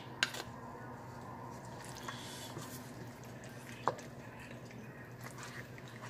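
Wooden spoon stirring thick, creamy chicken pot pie filling in a glass baking dish: faint wet squishing, with a light click just after the start and another about four seconds in.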